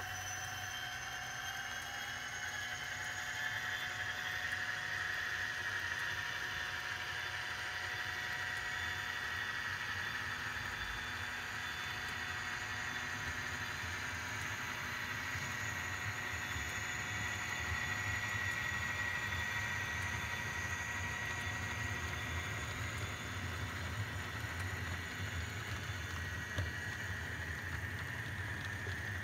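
Model freight train running past on the layout track, its diesel locomotives and then its freight cars rolling by: a steady whine that slowly wavers in pitch over a low rumble.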